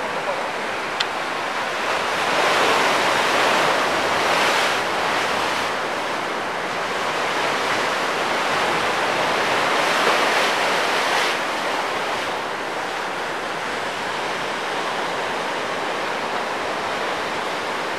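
Ocean surf breaking and washing below a pier, mixed with wind on the microphone: a steady rush that swells louder twice, a couple of seconds in and again around the middle.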